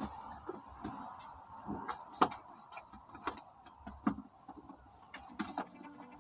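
Clear plastic sheeting crinkling and crackling in irregular sharp clicks as it is handled.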